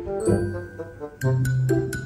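Background music: a tune of quick struck notes over a low bass line.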